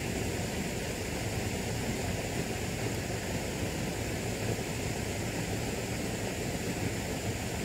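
Steady outdoor background noise: an even rushing hiss with a low rumble and no distinct events.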